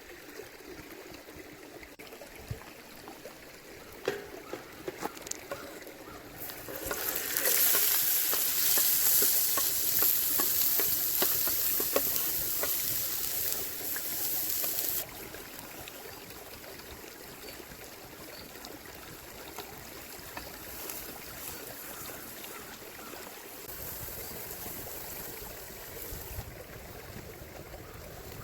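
Chicken cutlets frying in hot oil, a loud sizzle that starts suddenly about six seconds in and cuts off abruptly about halfway through. A few light clicks come just before it. A quieter steady hiss of flowing river water and soft sizzling fills the rest.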